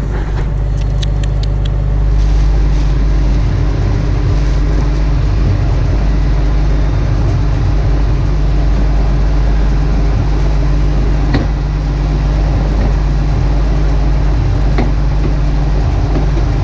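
Heavy diesel farm machinery running steadily, a low engine hum under a broad rushing noise that grows louder about two seconds in.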